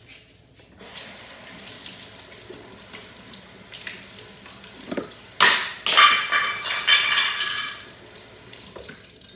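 Kitchen tap running as strawberries are rinsed under it. About five seconds in, a blender lid is dropped and lands with a loud clatter that rattles for a couple of seconds.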